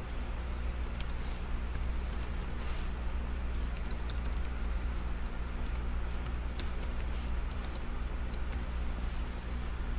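Typing on a computer keyboard: irregular clusters of key clicks over a steady low hum.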